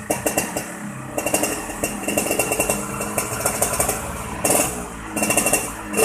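Yamaha RX-King two-stroke single-cylinder engine running with a rattly, snoring ('ngorok') noise, blipped up in short bursts about a second in and twice near the end.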